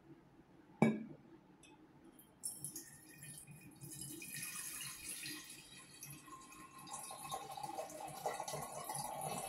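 A spoon clinks once against glass, then fermented rice-water lactobacillus serum trickles steadily from a glass jar, past a spoon held at its mouth, into a large empty glass jar, the trickle filling out near the end. This is the clear middle layer being poured off while the spoon holds back the fermentation crust.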